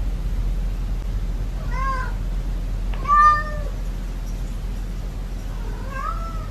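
A cat meowing three times, the second meow the loudest, over a steady low hum.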